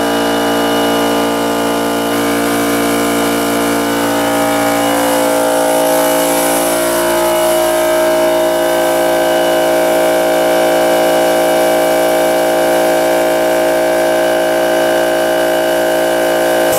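Air-powered siphon-cup spray gun hissing as it sprays adhesive onto a car roof, over a steady machine hum with several fixed tones.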